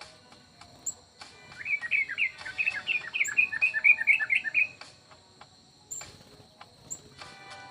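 Aviary birds calling. About a second and a half in, one bird gives a rapid run of chirps, several a second, for about three seconds. Short, very high chips sound every second or two over a faint steady high tone.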